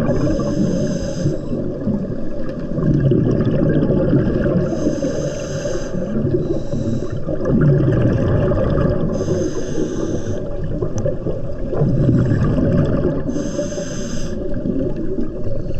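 Scuba regulator breathing underwater: four hissing inhalations, about one every four seconds, each followed by the low bubbling of exhaled air.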